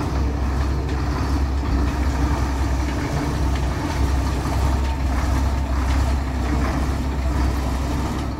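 Harmeet combine harvester's engine running steadily with a low drone as the machine drives slowly past.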